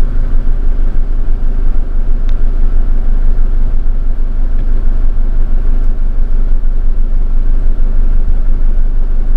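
A vehicle driving: steady engine and road rumble, heard from inside the cabin.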